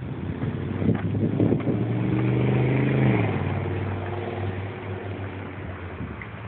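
A vehicle engine accelerating. Its pitch climbs for about a second and a half, drops about halfway through, then holds steady as it fades.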